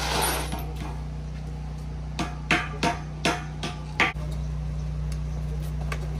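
About six sharp metal knocks in quick succession on a square steel post standing on its base plate, as it is set in position for welding, over a steady low hum.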